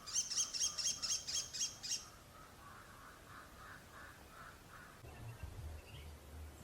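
American kestrel giving its shrill killy-killy call: a rapid run of about nine high, sharp notes over two seconds, then it stops. Fainter, lower chirping repeats in the background.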